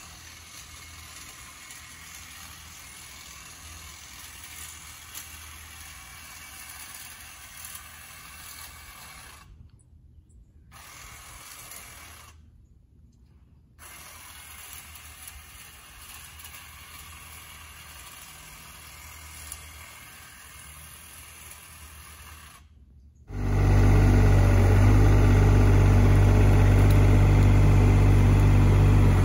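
Faint buzz of a hedge trimmer cutting a shrub, with a few brief dropouts. After about twenty-three seconds it gives way to the loud, steady running of a Sany SY35U mini excavator's diesel engine as its blade pushes uprooted brush.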